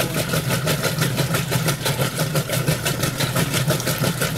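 Roper top-load washing machine agitating in its wash cycle: a steady low motor hum under a fast, even run of knocks, several a second. This is the clunking that the owner is troubleshooting in the agitator.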